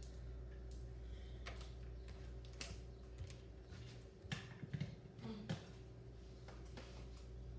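Faint steady room hum with a few scattered light clicks and taps. The sharpest click comes about two and a half seconds in, and a short cluster follows around four to five and a half seconds in.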